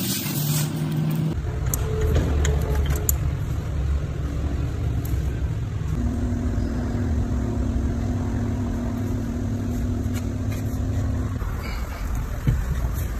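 Hyundai Accent Blue running with a steady low rumble, a few short knocks or clicks over it.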